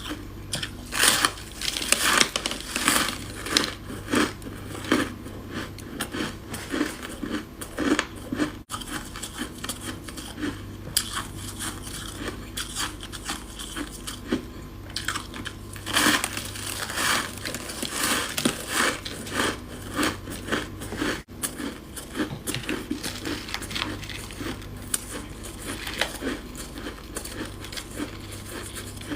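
Close-miked crunching and chewing of chunks of freezer frost ice, one crackly bite and grind after another. The sound drops out briefly twice.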